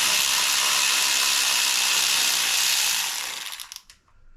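Power tool running steadily for about four seconds and then stopping, backing out one of the 10 mm bolts that hold the motorcycle's oil tank in place.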